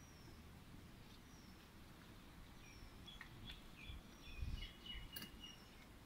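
Faint small birds calling: a thin, high, downward-sliding chirp repeated about every second and a half, with a second, lower twittering call partway through. A brief low rumble about four and a half seconds in.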